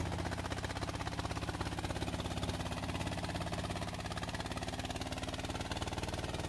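Single-cylinder diesel engine of a converted walk-behind tractor running steadily with a fast even chug, under load as it drives a heavily loaded four-wheel-drive cart through mud.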